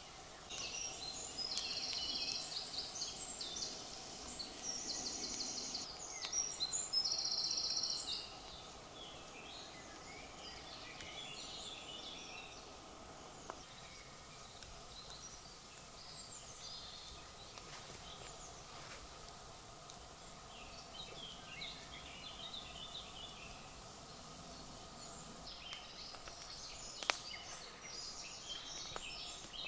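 Woodland birdsong: several small birds singing, with three loud rapid high trills in the first eight seconds, then softer scattered chirps. A couple of sharp clicks near the end.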